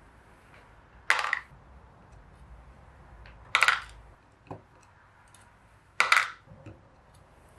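Small steel screws from a Dellorto DHLA carburetor's accelerator pump cover clinking as they are dropped down, three times about two and a half seconds apart, with a fainter knock in between.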